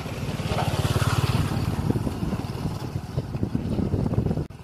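Engine of a large old cargo truck running at idle, a rapid, even beat. It cuts off abruptly near the end.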